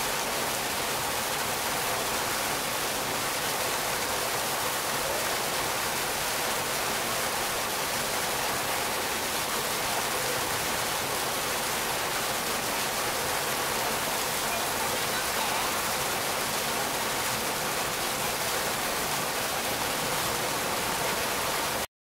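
Artificial garden waterfall: a column of water falling from a spout high on a stone wall and splashing steadily into a shallow pool below.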